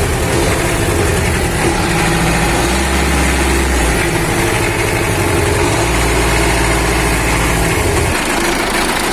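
MTZ-80 tractor's four-cylinder diesel engine running at idle, freshly fitted with four new injector nozzles after one was found dead. The deep rumble swells twice and falls away near the end.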